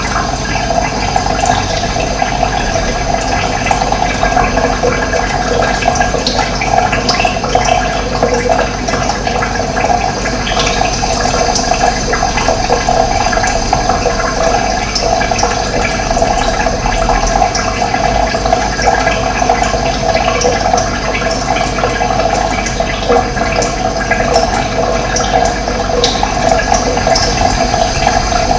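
Running water, a steady gurgling flow at an even level.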